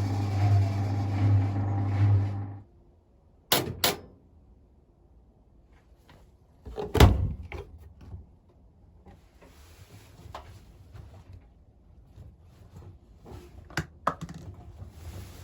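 Hotpoint WML540 washing machine running with a steady low hum and a faint falling whine that cut off abruptly about two and a half seconds in. Then two sharp clicks, a louder thump a few seconds later, and scattered light clicks and knocks.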